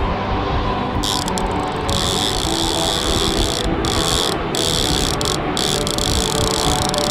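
Big-game trolling reel's drag clicking out as line is pulled from it, in spurts with short breaks, over the steady hum of the boat's engine.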